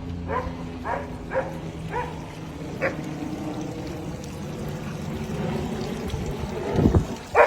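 A dog barks repeatedly in short yelps, about two a second, for the first three seconds. Then a steady rushing noise, like running water, carries on until a louder sound near the end.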